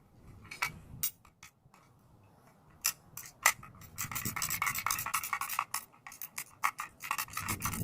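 Metal clicks and clinks from handling an old ratcheting bumper jack, a few separate clicks at first and then a stretch of rapid clicking and rattling over the last few seconds.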